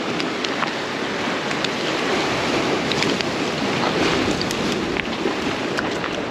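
Waves washing against a jetty with wind buffeting the microphone: a steady rushing, with a few faint ticks scattered through it.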